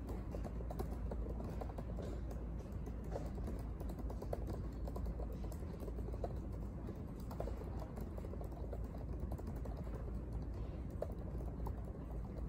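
Typing on a laptop keyboard: a run of quick, irregular key clicks over a steady low hum.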